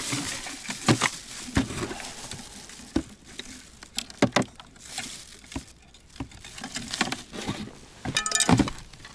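Gear being handled in a plastic tackle box on the ice: scattered clicks and knocks, with a short clattering rattle near the end.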